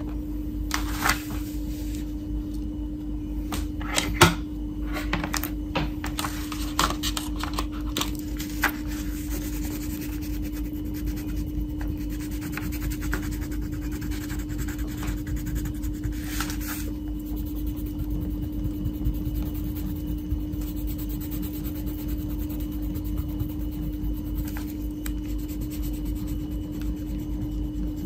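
Wax crayon rubbing and scratching across a colouring-book page, with several sharp knocks and clicks in the first few seconds, over a steady low hum.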